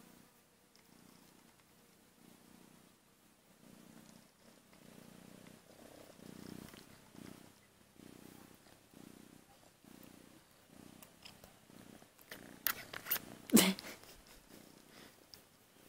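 Ginger kitten purring steadily while being petted, the purr swelling and fading with each breath. About three-quarters of the way through, a short burst of sharp knocks and clicks.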